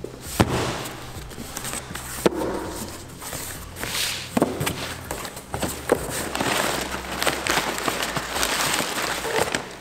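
A series of sharp knocks and clatter over a steady hiss, from hands and tools at work on a car's body panels.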